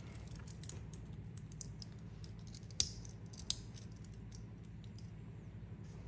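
Light clicks and clinks of wristwatches and their metal bracelets being handled, with two sharper clacks a little under three and a half seconds in. A low steady hum runs underneath.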